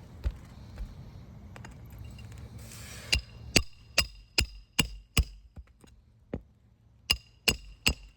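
Hammer striking a steel snake tool wedged under an asphalt roof shingle, sharp ringing metal blows: a run of six about two and a half a second, a pause, then three more. The blows test how the shingle stands up to the tool: whether its mat cracks and it sheds granules.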